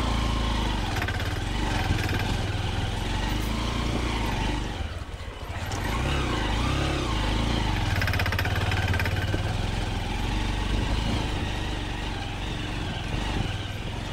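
Honda SP 125's 124 cc single-cylinder engine running under way at low speed. About five seconds in the engine note drops briefly, then climbs back as the revs rise.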